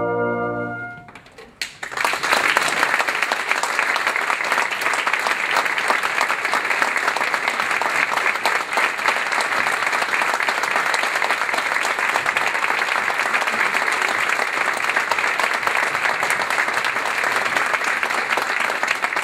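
A brass band's held final chord cuts off about a second in; after a brief pause, an audience breaks into steady applause.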